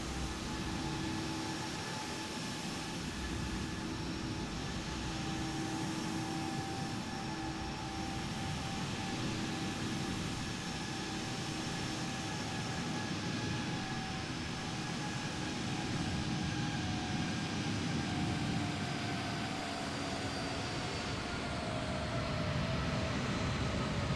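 Boeing 777-300ER's GE90-115B jet engines running: a steady rush of noise with several whining tones that gradually drop in pitch in the second half.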